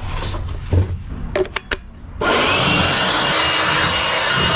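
A few light knocks of handling, then about two seconds in an electric air blower starts and runs steadily with a loud rush of air and a faint high whine, blowing silicone particles out of a car's boot.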